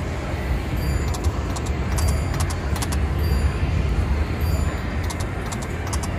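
Casino floor din with a steady low rumble, over which a Konami video slot machine's reels spin and stop with a run of light clicks and short high chime tones.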